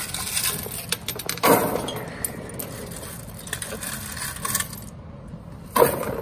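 Loose coins jingling and clinking as a hand pushes them across the metal tray of a coin-counting machine, with a louder rush of sliding coins about one and a half seconds in and again near the end.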